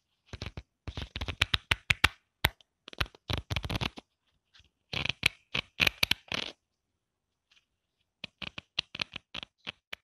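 Pages of a thick paper book flipped rapidly at the corner, a fast flutter of pages flicking past. It comes in repeated bursts with short pauses and a longer pause before the last burst.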